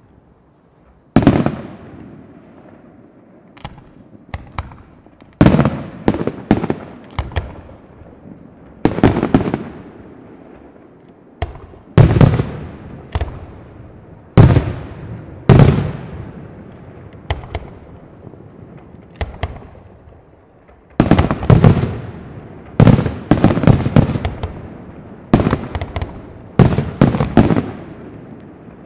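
Aerial firework shells bursting in a large display: a series of loud bangs at irregular intervals, some coming several in quick succession, each followed by a long echoing rumble.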